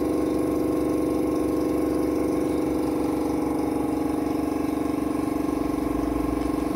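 Small electric motor running with a steady, even hum, vibrating a hand-held tube that sifts gold flakes out through its perforated end.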